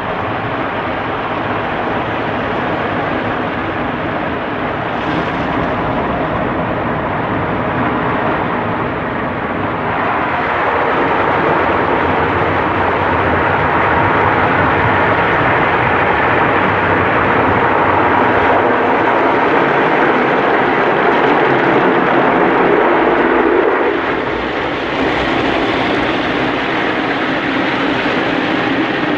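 Kärcher rollover car wash heard from inside the car: rotating wash brushes scrubbing over the body and water spraying on the windows, a loud steady noise. It grows louder about a third of the way through and changes briefly a few seconds before the end as the brush comes over the windscreen.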